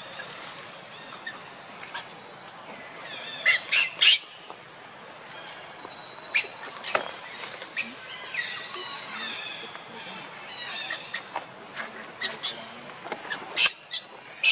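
Birds chirping and calling, with a few loud, sharp squawks: a cluster of three about three and a half seconds in and more near the end.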